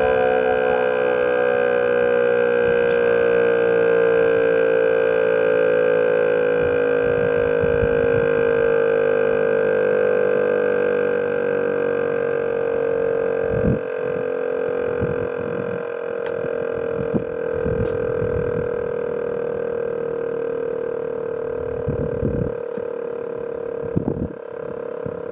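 VEM DS977 electric motor siren sounding one loud, steady tone that sinks slowly in pitch. A few brief low thumps come in the second half.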